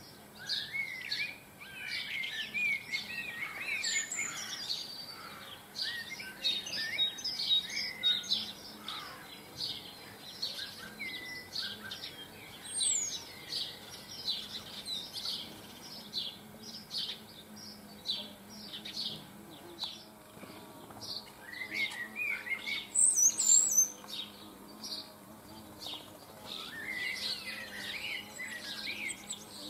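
Several small garden birds chirping and twittering: a steady run of short, repeated high chirps with bursts of busier twittering song, loudest about 23 seconds in.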